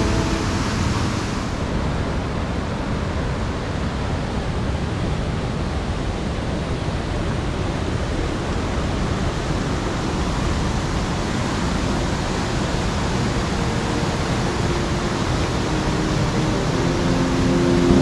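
Waterfall rushing steadily, an even wash of falling-water noise.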